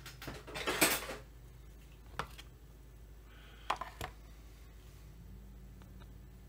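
Small hard parts and tools clattering as the saw is handled and taken apart, then a few separate sharp clicks and knocks.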